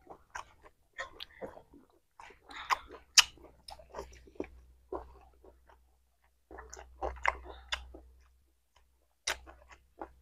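Close-miked chewing and biting of rooster meat and rice: wet mouth sounds and small crunches in clusters, with one sharper crack about three seconds in and short pauses between bites.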